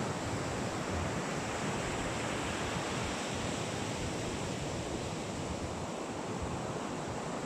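Steady wash of ocean surf on a beach, with wind rumbling on the microphone.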